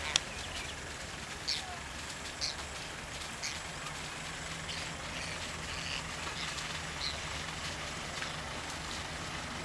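A vehicle engine idling steadily, with short high bird chirps now and then over it.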